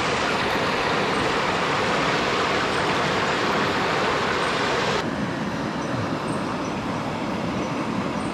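River water rushing steadily. About five seconds in it cuts suddenly to a duller, slightly quieter rush.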